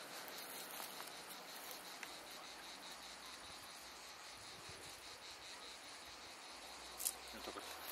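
Insects chirping steadily and faintly in the background, a thin continuous high trill. A brief click about seven seconds in.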